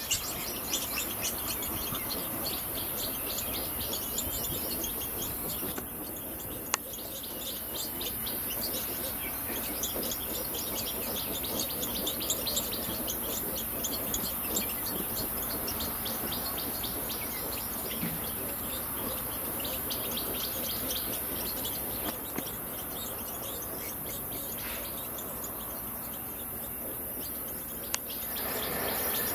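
Rapid high chirping calls, coming in runs with short pauses, over a steady high-pitched insect hiss.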